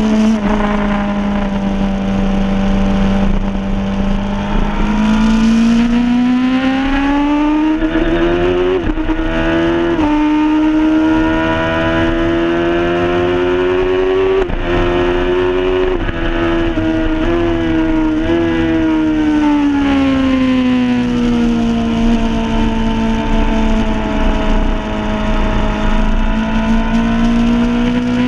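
Suzuki superstock motorcycle engine at speed, heard onboard: the engine note climbs in long pulls, drops sharply twice at quick gear changes, then falls away and holds steady before climbing again near the end.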